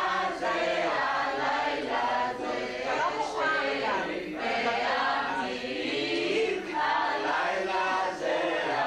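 Family of mixed men's and women's voices singing a Passover Seder song from the Haggadah together, continuously.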